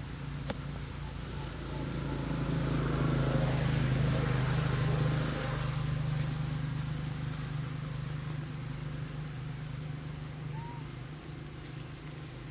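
Motor vehicle engine hum, swelling a couple of seconds in as it passes and easing off after about five seconds, with a steady low drone continuing underneath.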